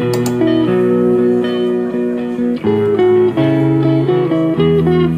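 Background music led by guitar, with held notes and several notes that bend in pitch.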